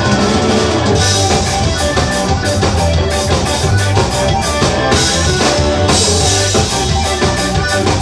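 Tejano punk band playing live: loud, fast rock with a pounding drum kit, electric guitar and bass guitar.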